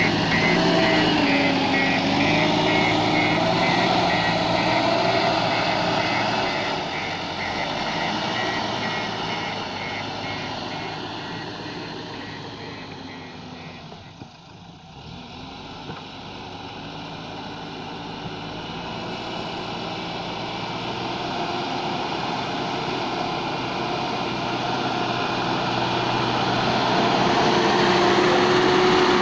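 Heavy diesel machinery engine running and changing pitch as it works. It fades to its quietest about halfway through, then grows loud again. A fast, high, evenly spaced ticking is heard over it for the first several seconds.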